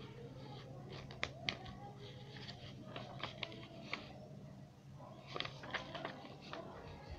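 Paper rustling and snapping as a handmade pop-up card with a honeycomb-paper flower is opened and folded shut by hand, with sharp paper clicks about a second in and again past the middle. A low steady hum runs underneath.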